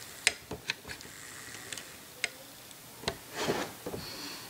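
Several light clicks and a short rubbing sound: handling noise from hands, camera and flashlight near the microphone.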